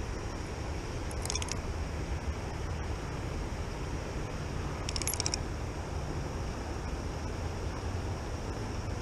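Spinning reel clicking in two short rapid bursts as its handle is cranked, over a steady rush of flowing river water and wind.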